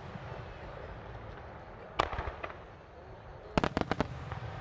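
Aerial firework shells of a starmine bursting: one sharp bang about two seconds in, then a quick cluster of four or five bangs near the end, over a low steady rumble.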